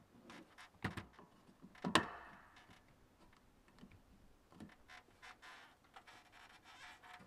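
Scattered clicks and knocks of hands handling a plastic RV tank vent cap and a cordless drill on the top of a plastic water tank, with two sharper knocks about one and two seconds in.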